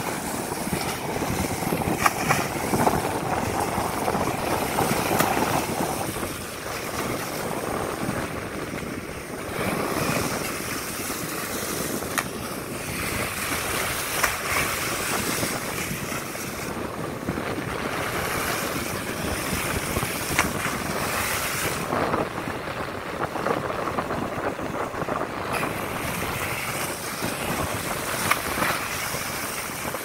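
Steady rush of sea water and wind from a moving ship's bow, with wind buffeting the microphone and the noise swelling and easing.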